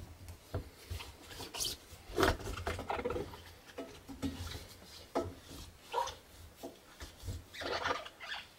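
A cloth in a gloved hand scrubbing inside the rubber door gasket of a Samsung front-loading washer, in irregular rubbing strokes, clearing out the built-up grime packed in the gasket fold.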